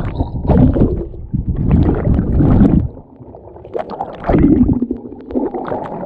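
Muffled churning and gurgling of water just after a jump into a canyon pool, with swells of bubbling splash and a short lull about three seconds in.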